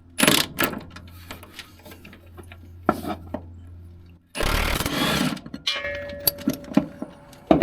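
Metal hand tools and sockets clinking and knocking as a wrench is worked on a truck's motor-mount bolts, with a louder rushing, rattling burst lasting about a second a little past the middle.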